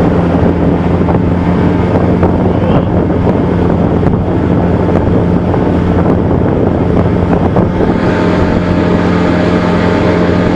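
Johnson 40 hp VRO two-stroke outboard motor running steadily with the boat under way, with wind buffeting the microphone. A higher steady hum joins in about eight seconds in.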